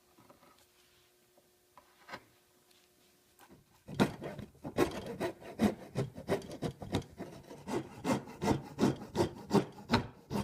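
Hand tool working a pine wood fill in quick repeated scraping strokes, about three a second, starting about four seconds in after a few isolated taps; the shaping of a new wood fill to fit the loss.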